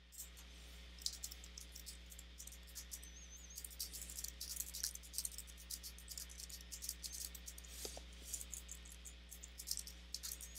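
Typing on a computer keyboard: quick, irregular keystroke clicks over a faint steady low hum.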